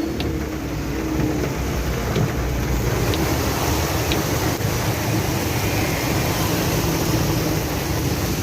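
Road traffic in heavy rain on a waterlogged street: vehicle engines running under a steady wash of water noise.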